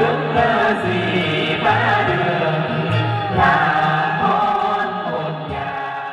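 Quan họ Bắc Ninh folk song sung by male and female voices into microphones through PA speakers, over a backing accompaniment with a steady low bass line. The sound fades down near the end.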